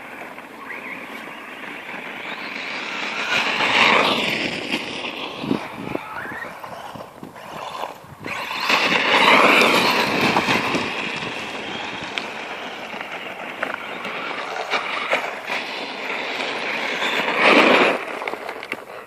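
Brushless-powered Traxxas Stampede 4x4 RC monster truck (Castle Mamba Monster 2 motor and speed controller) driving on gravel: the electric motor whines up and down and the tyres crunch over the stones. It swells loudest about four seconds in, again around nine seconds, and sharply near the end as the truck drives up close.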